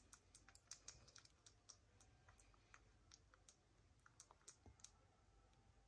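Near silence, broken by faint, irregular small clicks, a few a second.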